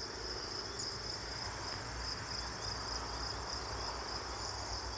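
Chorus of crickets chirping, a steady high-pitched shrill that does not let up.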